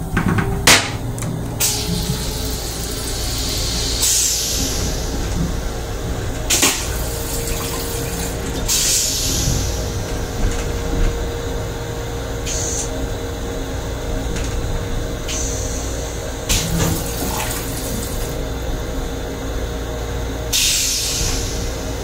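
Metro-North M7 railcar toilet running its flush cycle: repeated short hissing spurts of water into the stainless-steel bowl, about six of them, refilling the bottom of the bowl. Under them runs the steady low rumble and hum of the railcar.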